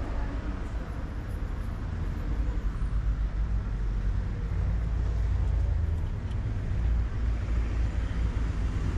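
Low, steady rumble of street traffic, with car engines running nearby.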